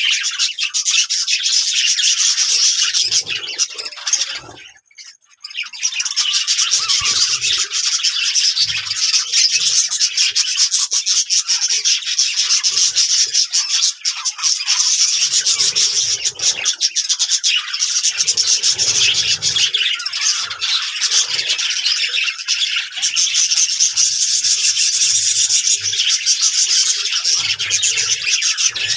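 A flock of Australian parrots chattering together in a dense, continuous high-pitched twittering, breaking off briefly about five seconds in before resuming.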